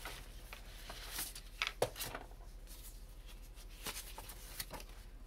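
Folded paper colour chart rustling and crackling as it is handled and opened out, in several short bursts.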